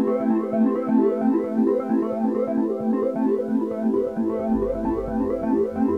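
Background electronic keyboard music with quick repeated notes; a low pulsing bass comes in about four seconds in.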